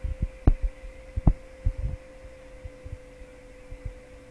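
Dull low thumps at uneven intervals over a steady electrical hum, with two sharper knocks about half a second and just over a second in.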